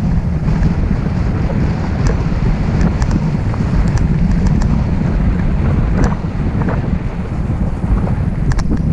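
Wind buffeting the microphone: a loud, steady low rumble with a few scattered small clicks.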